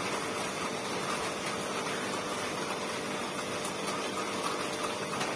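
Steady room hum with a faint constant tone and no speech.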